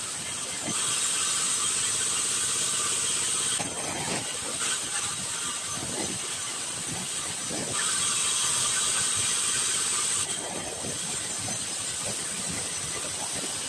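Sawmill band saw running and cutting a wooden board lengthwise into a plank, with two louder stretches of cutting, about a second in and about eight seconds in, and knocks of the board being handled in between.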